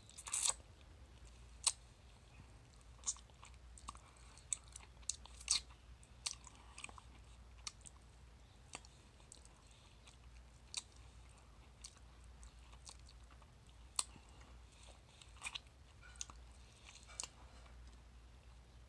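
Mouth sounds of sucking and eating the soft, fibrous flesh of a peeled ripe mango: irregular sharp smacks and sucking clicks, the loudest about half a second and nearly two seconds in.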